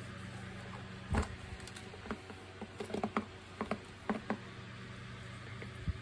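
Plastic parts of a disassembled vacuum cleaner handled by gloved hands: a knock about a second in, then a string of small clicks and taps, and another knock near the end.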